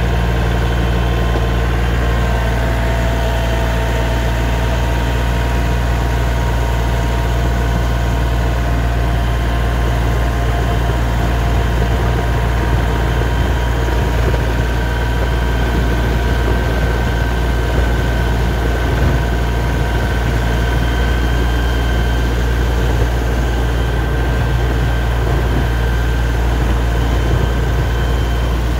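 LS MT235 compact tractor's diesel engine running steadily, heard close up, with a constant low drone and a few steady whining tones above it.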